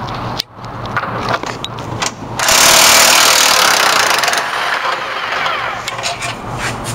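Workshop tool noise under a car: a few sharp metal clicks and knocks, then about two and a half seconds in a loud burst of hissing, like compressed air, that lasts about two seconds and tails off.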